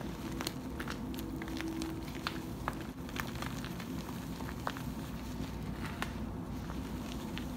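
Hands squeezing and crushing broken blocks of Westside Barbell gym chalk topped with cornstarch paste and glitter, giving irregular crisp crunches and crackles.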